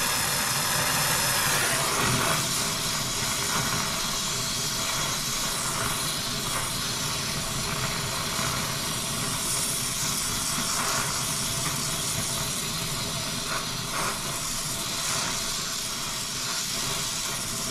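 Oxyacetylene brazing torch flame hissing steadily while heating a copper refrigerant line joint. It is a little louder for the first couple of seconds, then even.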